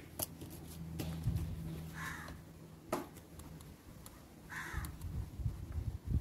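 Ballpoint pen writing on paper: faint scratching with small clicks of the pen, over a low steady hum. Two short calls sound in the background, about two seconds in and again about four and a half seconds in.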